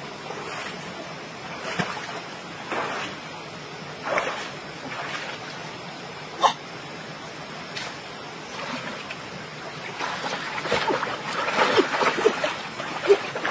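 Shallow stream water splashing as someone wades and snatches at fish by hand. The splashes come in irregular bursts, busier and louder over the last few seconds.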